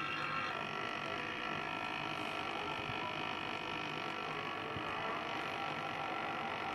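Cartoon soundtrack playing through a smartphone's small speaker: a steady, sustained hum of many held tones.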